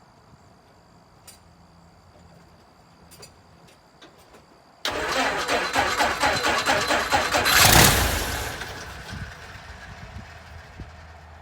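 Citabria light aircraft's four-cylinder Lycoming engine starting for the first time after restoration: it catches suddenly about five seconds in, runs loud and uneven with rapid pulses, peaks, then settles into a steady idle.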